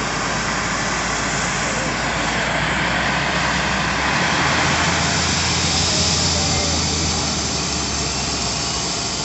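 Helicopter turbine engines running on the ground: a loud, steady rushing whine with a low hum that rises slightly about four seconds in.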